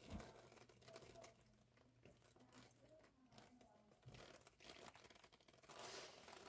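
Near silence, with faint rustling and a few light clicks of handling.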